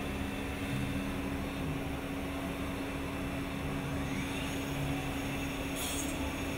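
Steady drone of an industrial robot arm's milling spindle running as it shapes a wooden chair part, with a constant hum under it and a faint rising whine about four seconds in.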